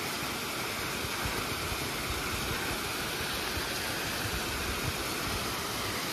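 Wind buffeting the microphone: a steady rushing hiss with irregular low rumbles underneath.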